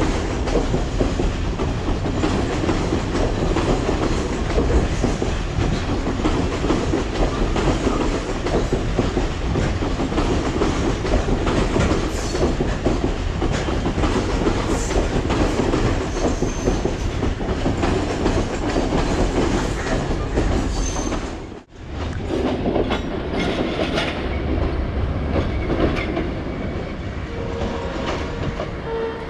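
Train running on the rails: the steady rumble and clatter of passenger coach wheels over the track, with a short drop-out about three-quarters of the way through.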